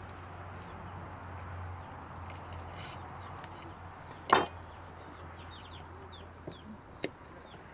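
Faint birds chirping in short, falling calls over a steady low hum and background hiss. A sharp clink, the loudest sound, comes a little over four seconds in, with a few fainter clicks later.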